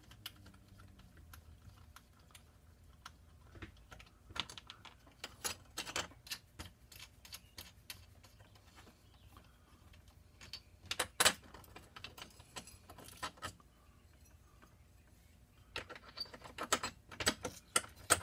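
Light clicks and metallic taps from a photo-etch bending tool being handled: its metal clamp plate and bending fingers are shifted and set by hand. The clicks come in scattered clusters, the loudest a sharp pair about eleven seconds in, with a busier run near the end.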